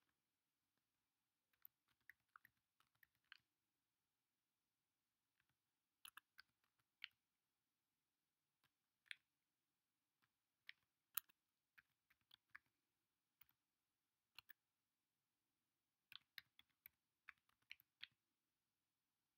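Faint keystrokes on a computer keyboard, typed in short irregular runs with pauses between.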